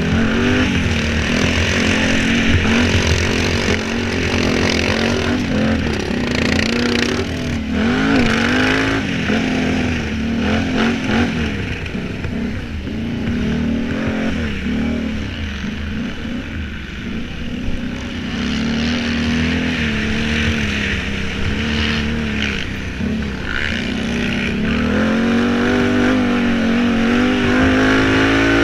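Racing quad bike's engine running hard from a camera mounted on the machine. Its pitch rises and falls again and again as the rider opens and shuts the throttle over the dirt course.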